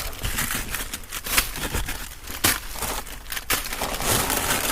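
Plastic bags and snack packaging crinkling and rustling as they are rummaged through and handled, with irregular sharp crackles and knocks.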